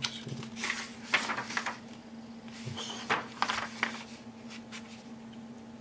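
Paper rustling and crinkling as an instruction booklet's page is turned and pressed flat by hand, in several short scrapes and taps during the first few seconds, over a faint steady hum.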